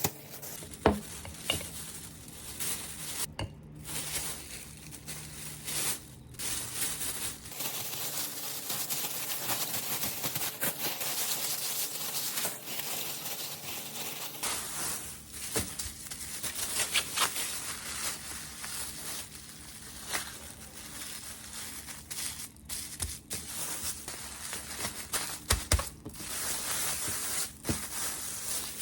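Handling noise: rustling, crinkling and scrubbing, with scattered light knocks and clicks.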